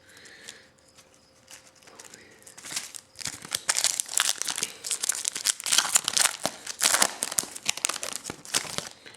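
A trading-card pack wrapper crinkling and being torn open and handled. There are faint rustles at first, then about three seconds in a dense, loud crackle starts and keeps going until just before the end.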